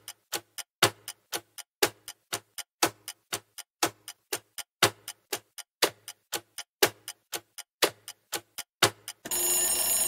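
Countdown-timer sound effect: a clock ticking, about four ticks a second with a louder tick on each second. About a second before the end the ticking gives way to a steady alarm tone as the timer reaches zero.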